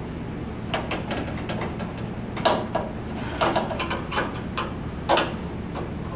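Irregular metallic clicks and clinks of a hand tool working a screw in a VW Beetle door, a dozen or so short knocks, some briefly ringing, over a steady low hum.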